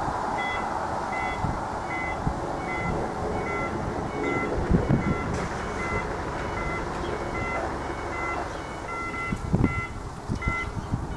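Level crossing audible warning alarm starting about half a second in: a regular pattern of alternating high and low electronic beeps, the signal that a train is approaching and the barriers are about to come down. A low steady rumble runs underneath, with a couple of louder low thumps near the middle and near the end.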